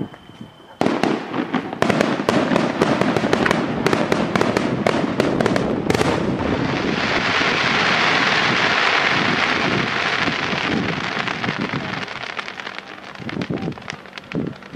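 Aerial fireworks display. About a second in, a rapid volley of bangs starts, then a dense crackling hiss swells over several seconds and dies away, with a few scattered bangs near the end.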